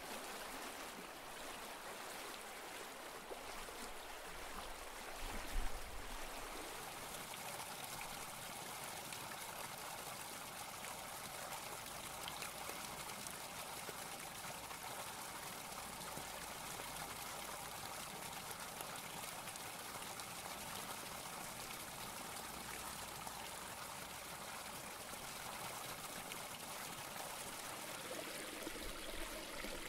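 Steady splashing of a pond's spray fountain: an even rush of falling water, with one brief low thump about five seconds in.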